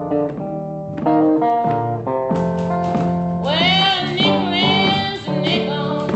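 Acoustic guitar playing a blues, with typewriter keys clacking along as percussion. About three and a half seconds in, a woman's voice comes in singing with a wide vibrato.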